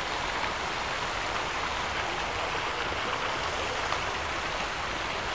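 Rows of small fountain jets splashing into their basins: a steady hiss of falling water.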